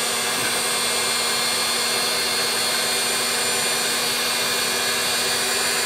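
Heat gun running steadily on full heat, a constant blowing rush with a steady hum, shrinking a glue-lined heat-shrink sleeve.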